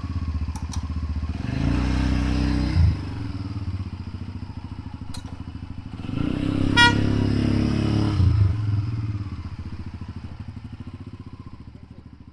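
Small motor vehicle engine running and revving up twice, with a short horn beep about seven seconds in, fading away near the end.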